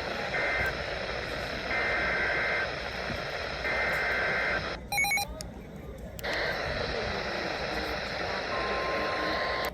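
Weather radio receiver over static, sending the data bursts of a SAME alert header: short, harsh two-tone warbling bursts repeated at about one-second gaps. The static drops out briefly around the middle, and a steady single alarm tone, the 1050 Hz NOAA Weather Radio warning tone, begins near the end.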